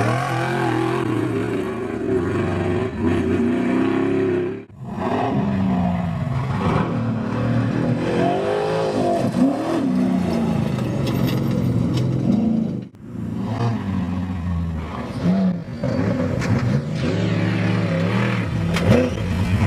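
Off-road desert race trucks' engines revving up and down as they drive, the pitch rising and falling with gear changes and throttle. The sound breaks off briefly twice, about four and a half and thirteen seconds in.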